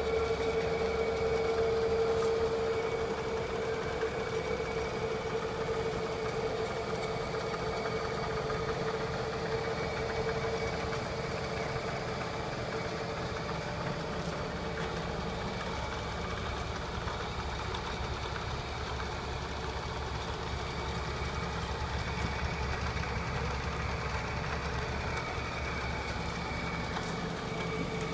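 Ammco Safe Turn 3000 brake lathe running steadily, its motor and spindle giving a steady whine.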